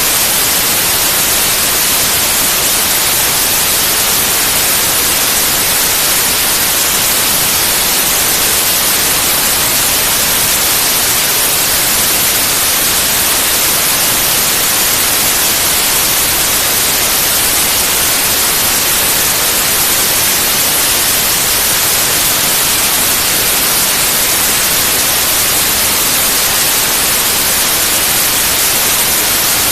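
Steady, loud white noise: an even, unchanging hiss across the whole range, strongest in the highs.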